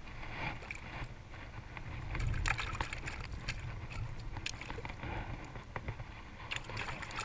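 Low wind rumble on the microphone, with scattered small clicks and rustles of handling close to the camera.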